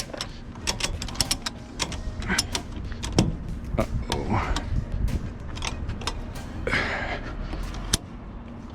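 Ratchet of a wheel strap being worked to tighten the strap over a tire, giving irregular runs of sharp clicks with a couple of short sliding sounds of webbing being pulled.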